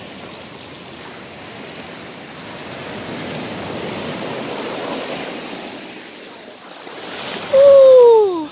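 Shallow surf washing up and back over sand at the water's edge, swelling midway. Near the end a loud falling call, about a second long, rises above the surf.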